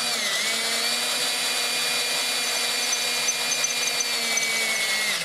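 Cordless drill running steadily at high speed, its bit cutting a shallow bevel into an existing hole in a stainless steel band without going through, so that a screw head can seat. The pitch dips briefly just after it starts, then holds steady until the drill stops near the end.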